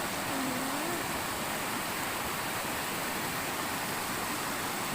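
Steady hiss of rain falling, an even rushing noise with no change in level.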